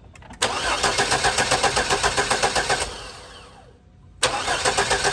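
S-10 pickup's engine cranking on the starter without catching, in two tries: even, rapid pulses of about six a second. The first try winds down near the middle and the second starts about four seconds in. It is a no-start; the fuel pump has failed.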